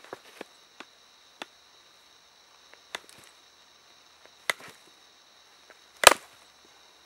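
Copper tip of a pressure crutch clicking and grinding against the prepared platform of a flint core held in a wooden stand, a few small sharp ticks. About six seconds in comes one loud sharp crack as a flint blade is pressed off the core.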